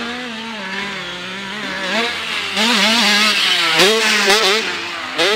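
Motocross dirt bike engine revving hard as the rider works the throttle over the jumps, its pitch climbing and dropping again and again. It is loudest from about two and a half to four and a half seconds in, as the bike passes close.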